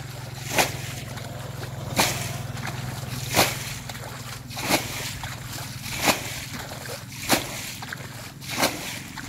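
Muddy water splashing as a plastic bucket bails it out of a shallow ditch, seven sharp splashes about every 1.3 seconds.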